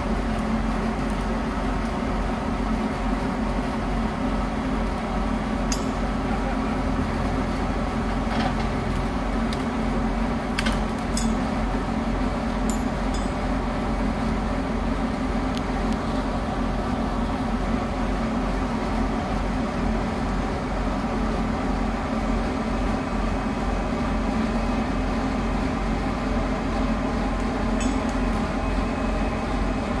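Steady drone of heavy diesel machinery running, the engines of the crane truck, excavator and wood chipper, with a few short sharp knocks scattered through it.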